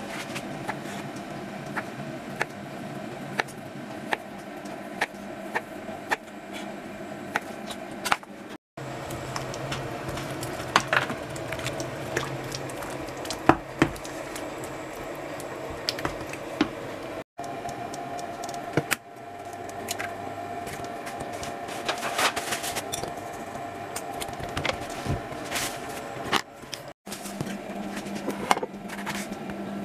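Kitchen food-prep sounds: a knife clicking and tapping on a wooden cutting board as a boiled sausage is sliced, a wooden spoon working through tomato sauce in a frying pan, and a knife cutting an orange on the board, over a steady low hum. The sound drops out abruptly three times.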